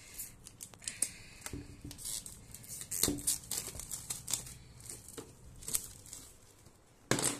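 Clear plastic shrink-wrap crinkling and rustling in short bursts with small clicks as it is picked at and torn off a phone's cardboard box, with a louder rustle near the end.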